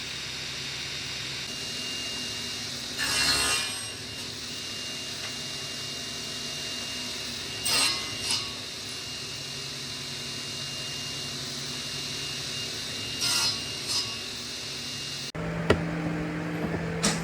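A power saw running steadily, biting into wood in three short, loud cuts about five seconds apart. Music comes in abruptly near the end.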